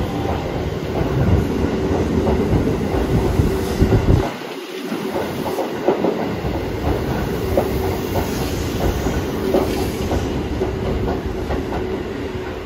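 9100 series electric multiple-unit train pulling out of the station and running past, its wheels clicking over the rail joints, with a steady whine.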